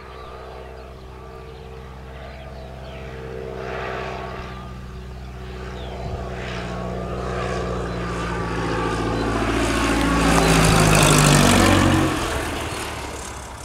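Single-engine propeller light aircraft, a high-wing monoplane, passing low overhead: its engine-and-propeller drone grows steadily louder, peaks about three quarters of the way in, then drops in pitch and fades as it goes past.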